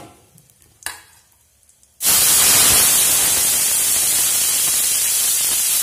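Boiled, still-wet bottle gourd and moong dal hitting hot mustard oil with a cumin and dried-red-chilli tempering in a kadai. A sudden loud sizzle starts about two seconds in and holds steady.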